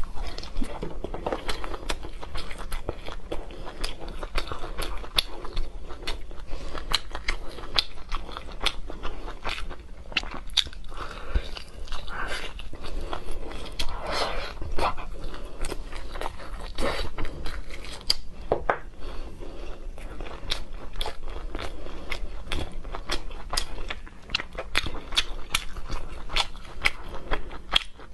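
Chewing and biting as meat is pulled off a pork rib bone by mouth, a dense run of quick mouth clicks throughout.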